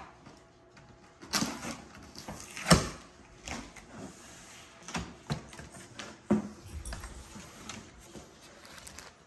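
Cardboard speaker box being opened: a knife slitting the packing tape, then the flaps pulled open with a run of cardboard scrapes and knocks, the loudest nearly three seconds in.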